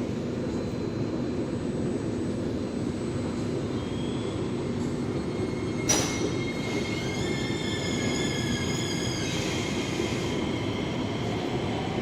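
SMRT C151A metro train running with a steady low rumble. About six seconds in there is a sharp clank, followed by a high-pitched squeal of several tones lasting about two seconds.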